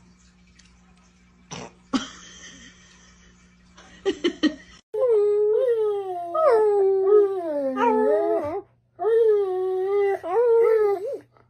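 A dog and a woman howling together, starting about halfway through. There are two stretches of long, wavering howls that slide downward in pitch.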